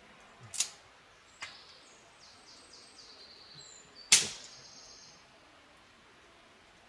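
A wood fire crackling with three sharp pops, the loudest about four seconds in. A small bird sings a high run of short notes that step down in pitch.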